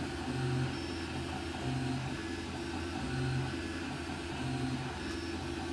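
Stepper motors of a home-built CoreXY 3D printer humming as the print head moves around the bed while printing. The hum steps between a few pitches every half second or so as the moves change.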